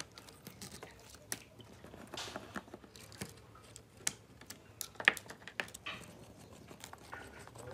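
Scattered small clicks, scrapes and crackles of a grimy, water-damaged MacBook being taken apart by hand: internal cables pulled loose and a screwdriver working at the display-hinge screws. The sharpest click comes about five seconds in.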